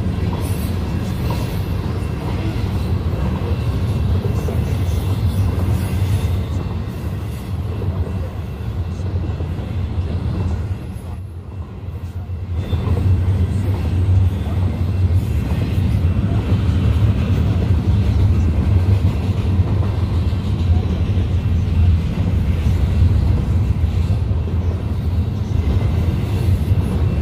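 Double-stack intermodal freight train rolling past a grade crossing: a steady low rumble of wheels on rail that dips for a moment about eleven seconds in, then comes back louder.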